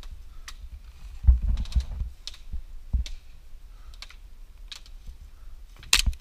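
Scattered sharp clicks of airsoft fire, roughly one a second and irregular, with low thuds of movement, the loudest near the middle and near the end.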